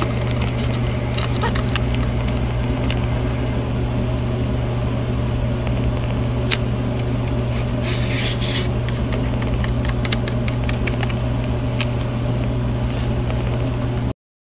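A steady low mechanical hum, with scattered light clicks and a brief crinkle about eight seconds in from a plastic petri dish and Parafilm being handled. The sound cuts off suddenly near the end.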